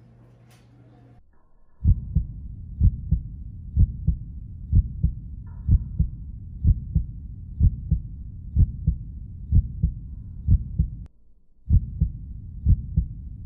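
Heartbeat sound effect: low, even beats about twice a second over a faint low drone, starting about two seconds in and breaking off briefly near the end before resuming.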